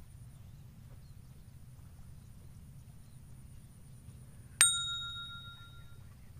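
A single bright bell-like ding about four and a half seconds in, ringing out for about a second, over a low steady rumble.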